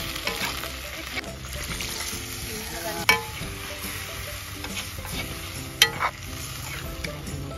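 Octopus and potato masala sizzling in a kadai while a perforated metal spoon stirs it, scraping through the food. There are sharp clacks of the spoon against the pan, the loudest about three seconds in and again near six seconds.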